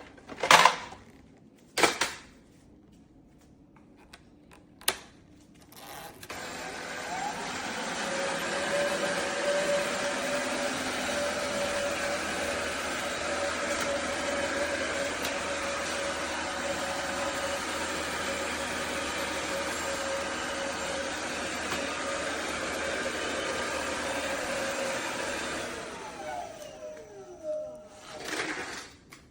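Kenmore DS1020 cordless stick vacuum: a few sharp clicks, then the motor starts about six seconds in and runs steadily with a constant whine. Near the end it is switched off and winds down with a falling whine, followed by a couple of light knocks.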